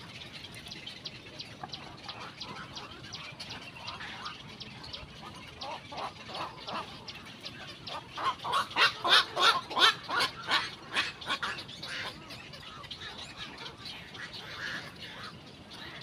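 Black-crowned night herons calling at their nests: scattered harsh squawks, then a loud run of rapid calls, several a second, about halfway through.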